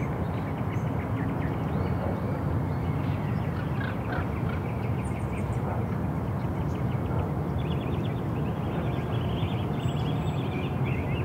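Outdoor ambience: a steady low rumble, with small bird chirps that become more frequent from about eight seconds in.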